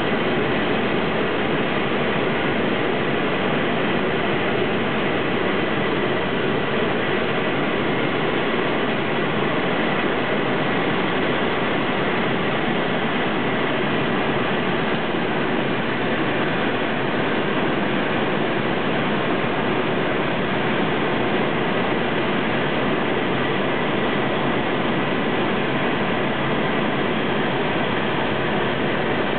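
Steady drone of a Sting Sport light-sport aircraft's engine and propeller, mixed with airflow noise, heard inside the cockpit on final approach and landing.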